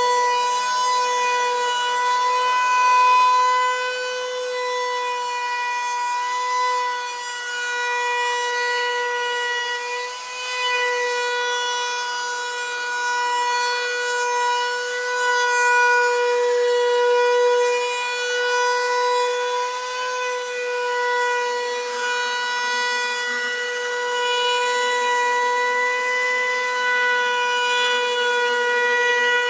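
Router with a binding cutter bit running at a steady high whine, cutting the binding channel around the edge of an acoustic guitar body as the body is guided past it in a channel-routing jig.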